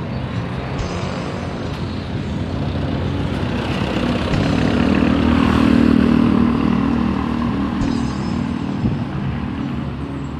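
Street traffic: a motor vehicle's engine hum swells to its loudest about halfway through, then fades, as if passing close by.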